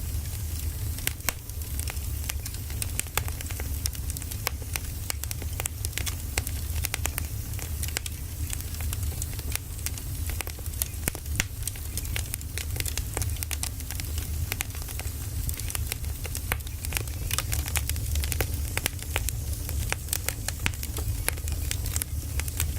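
Firewood burning, with dense, irregular crackles and pops over a steady low rumble.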